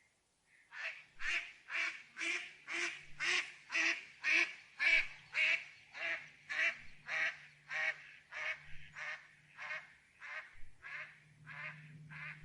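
Duck quacking: a long run of about twenty evenly spaced quacks, roughly two a second, loudest in the first half and gradually fading.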